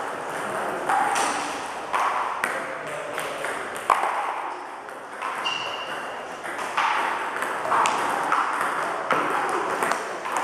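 Table tennis balls being struck by paddles and bouncing on the table during a multiball feeding drill: a steady run of sharp, hollow clicks, one ball after another.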